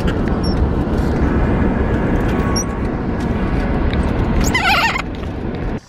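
Steady road and wind noise inside a car travelling at highway speed. A brief wavering high-pitched sound cuts in about four and a half seconds in.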